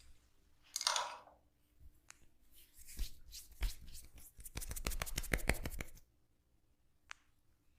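Hands working a head massage: a brief rub about a second in, then a quick run of taps and pats on the head that speeds up into a dense rapid series before stopping about six seconds in.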